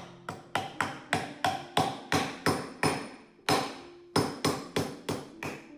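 A hammer striking a wooden board again and again, about three sharp taps a second with a short pause a little past halfway.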